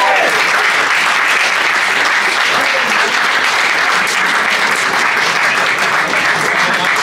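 Steady applause from a roomful of people clapping.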